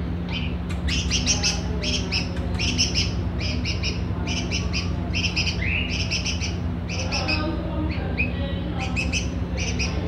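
Hand-raised red-vented bulbul chick chirping: quick bursts of short, high chirps about once a second, the calls of a young bird waiting to be hand-fed. A steady low hum runs underneath.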